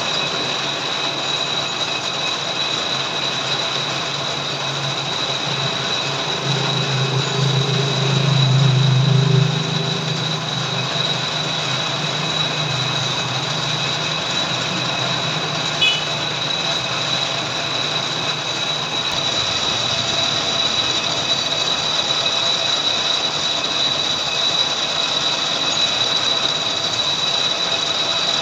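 Lathe running and cutting, a steady high-pitched whine over machine noise. A low rumble swells for a few seconds about seven seconds in, and there is a single small click midway.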